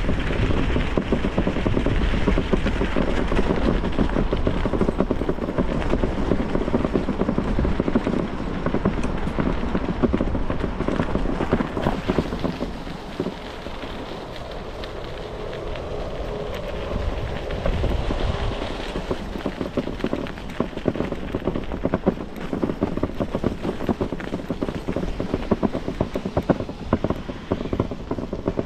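Riding noise from a moving bicycle: wind rushing over the camera's microphone, mixed with a dense crackle and rattle from the bike and its tyres on the path. It eases for a few seconds around the middle and then builds again.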